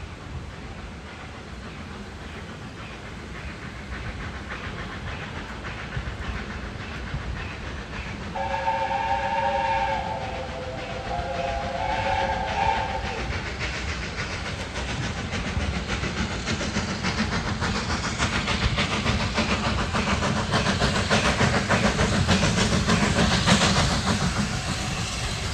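A steam locomotive's whistle sounds once for about four seconds, starting about a third of the way in. It is a chord of several notes, and one note sags in pitch near its end. Under it runs a steady steam rumble and hiss, and in the second half a dense, rapid hiss builds up and grows louder.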